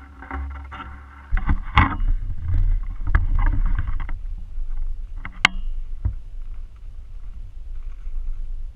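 Handling noise from a camera being picked up and panned by hand: a deep rumble on the microphone with rustling and knocks, and sharp clicks about two seconds and five and a half seconds in.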